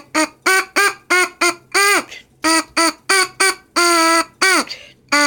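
A trumpet mouthpiece buzzed by the lips on its own, without the horn. It gives a quick string of short, loud, buzzy blats, about three a second, most bending up and back down in pitch, with one longer held note about four seconds in. It sounds like a duck.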